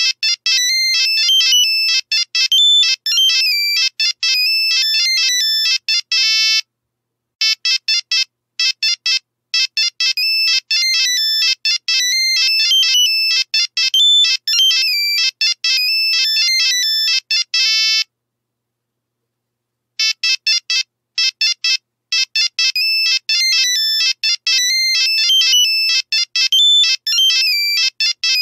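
Nokia mobile phone ringtone: a high-pitched electronic melody of rapid short notes, looping over and over. It stops briefly about seven seconds in and for about two seconds near the middle before starting again.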